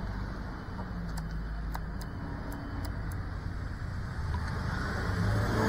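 Motors of a Cinelog35 cinewhoop FPV drone, armed and idling on the ground: a steady low hum that swells louder near the end as the throttle comes up.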